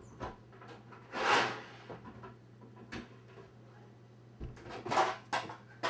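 Off-camera rummaging in the kitchen: a drawer slides open with a short rush of noise about a second in, then a few scattered knocks and a clatter of metal near the end as muffin tins are pulled out.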